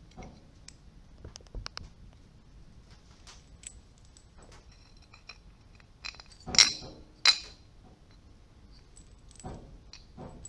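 Metal head bolts clinking and tapping as they are slid down through a mower engine's cylinder head and new head gasket: scattered light clicks, with two sharper clinks between six and seven and a half seconds in.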